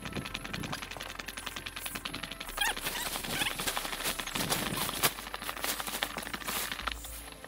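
Tent fly sheet being pulled and draped over a dome tent, the nylon fabric rustling and crinkling in a dense run of rapid crackles, a little louder about two and a half and five seconds in.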